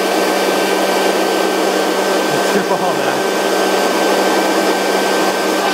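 Electric leaf blower running steadily, a rush of air with a constant whine, its nozzle blowing into the mouth of a Labrador that bites at the airstream.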